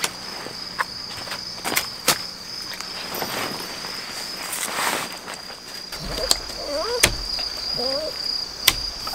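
Crickets trilling in a steady, high, even tone, with scattered sharp clicks and knocks from a tent's buckles and pole being fitted. From about six seconds in, a small dog gives a few short whines that rise and fall.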